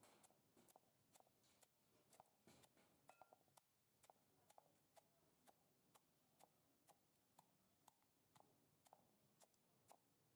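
Near silence with faint, regular ticks about twice a second.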